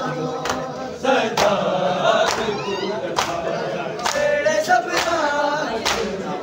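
A crowd of men chanting a noha (Shia lament) in chorus, while they beat their chests in unison (matam). The beats are sharp slaps, seven of them, a little under a second apart.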